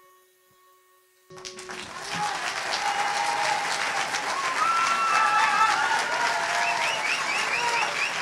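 Theatre audience applauding, breaking out suddenly a little over a second in after the faint tail of a held music chord dies away, with voices cheering over the clapping.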